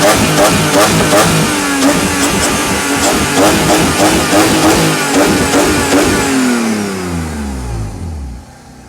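BMW M52B28 2.8-litre straight-six with a new exhaust, revved hard and held high on its mechanical throttle, stuttering in quick pulses about two or three times a second. About seven seconds in, the revs fall away steadily and the engine drops back to a much quieter level.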